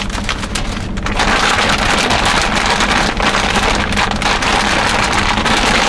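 Thin plastic bag crinkling and rustling with dense crackles as it is handled close by, over a steady low hum.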